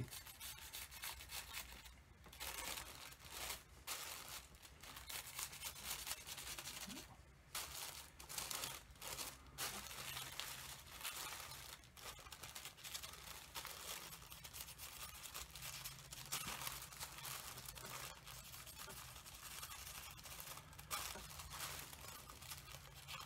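Charcoal pencil scratching and rubbing across thin pattern paper laid over fabric, with the paper crinkling under the hand; faint, in short irregular strokes.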